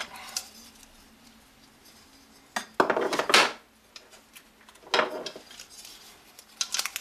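Aluminium heatsink covers clattering as they are handled and set down on a wooden table: a sharp click, then a louder metallic clatter around the middle, and another knock a couple of seconds later.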